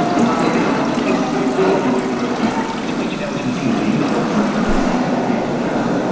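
Water running and splashing steadily in the galvanized metal tub of Rauschenberg's Oracle sculpture, mixed with a continuous jumble of broken voices and noise from the sculpture's built-in radios.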